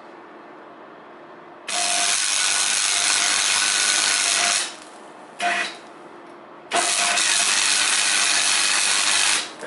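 MIG welder arc crackling and sizzling as it welds a steel car exhaust pipe joint: a run of about three seconds, a short tack, then another run of a few seconds, each starting and stopping abruptly.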